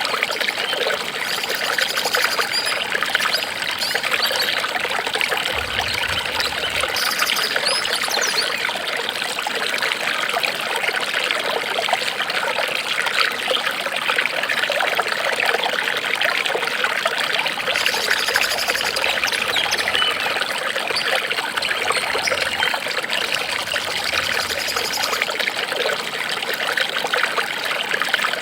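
Water trickling and flowing steadily, like a small stream running over stones, with an even splashing rush that does not let up.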